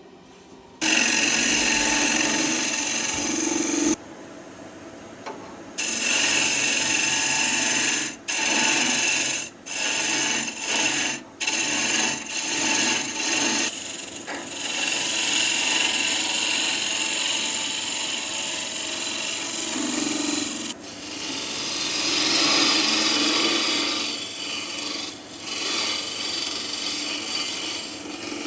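A turning tool cutting a spinning wood blank on a lathe: a loud scraping hiss in long passes that stop and start several times.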